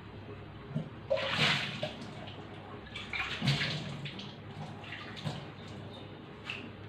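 Thick masala gravy bubbling under the glass lid of a covered kadai, a steady simmer broken by irregular louder splutters and pops.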